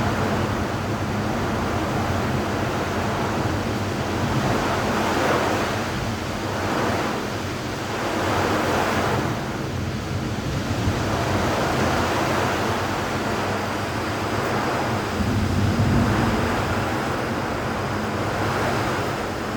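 Thunderstorm noise: a steady rush of wind and rain that swells and eases every few seconds.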